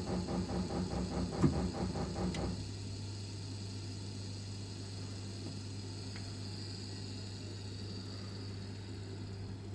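Heating radiator clanking, carried through the pipework from a Vaillant Ecotec Plus 831 gas boiler: rapid rhythmic knocking, about five a second, with one louder knock, stopping abruptly about two and a half seconds in and leaving the circulating pump's steady low hum. The clanking comes only while the burner is firing, and the owner wonders whether it is the diverter valve.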